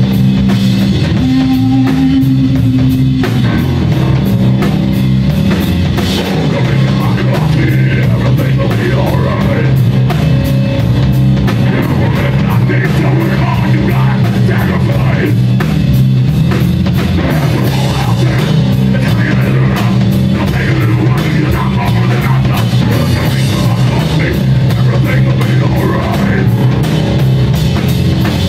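Rock band playing live and loud: electric guitar, bass guitar and drum kit, with a heavy low riff and steady drum strokes.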